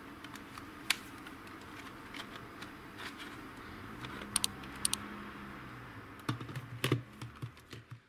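Hard plastic Panasonic VCR remote controls clicking and knocking against each other as they are handled, in scattered sharp clicks. Near the end comes a cluster of louder knocks with duller thuds as they are set down on the desk.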